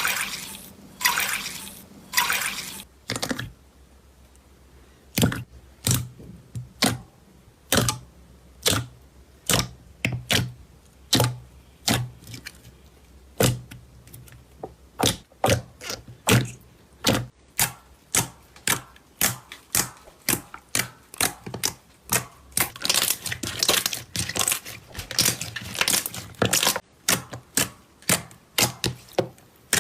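Slime being pressed and poked, giving a series of sharp wet clicks and pops about one a second, turning into denser crackling near the end.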